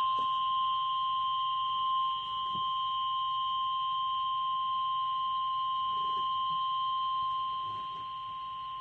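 Emergency Alert System attention tone ahead of a severe thunderstorm warning: one steady, high-pitched electronic tone about nine seconds long that cuts off abruptly.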